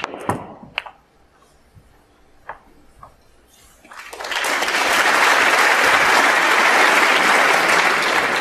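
Sharp clicks of snooker balls as the cue ball splits the pack of reds, with a few fainter clicks as balls knock together over the next seconds. About four seconds in, audience applause swells up and holds, fading near the end.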